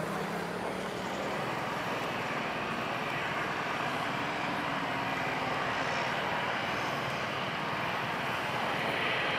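Boeing 737-800's CFM56 jet engines running at low thrust as the airliner turns around on the runway and taxis back, a steady rushing jet noise that slowly grows louder.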